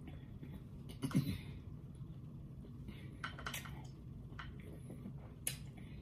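Eating sounds of seafood picked apart by hand: scattered small clicks and smacks from mouth and shellfish, with a brief hum about a second in.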